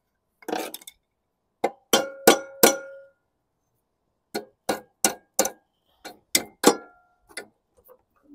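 Hammer blows on the sheet-metal deck of a 2012 Toro Recycler mower, bending it back off the blade pulley it was rubbing against. A run of four sharp blows with a short metallic ring, then about eight more.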